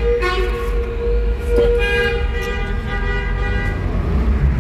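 Car horns blowing long, steady blasts as cars drive through a road tunnel, over the continuous low rumble of engines and tyres. One blast sounds near the start and another from about two seconds in to near the end, the two overlapping.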